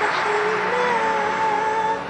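Liturgical psalm chanting in Arabic: one voice holds a single long note that wavers slightly in pitch.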